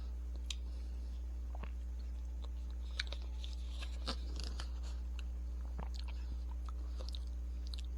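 Someone biting and chewing an ice cream bar with a hard chocolate core: a scatter of small, faint crunches and mouth clicks, the clearest about three and four seconds in. A steady low electrical hum runs underneath.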